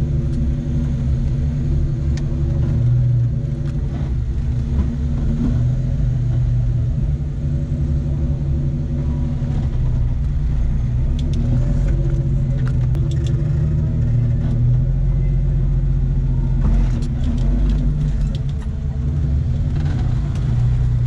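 Jeep Cherokee XJ's engine and drivetrain heard from inside the cab, running steadily at low speed with a deep rumble. A few light clicks and rattles come and go.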